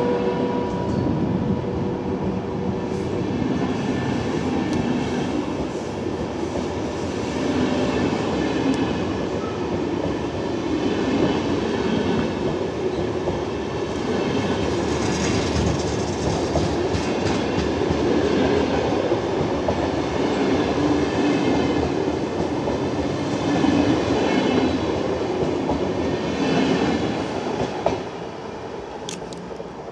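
Double-deck InterCity passenger carriages rolling past as the train pulls out of the station, a steady rolling rail noise; it falls away near the end as the last carriage passes.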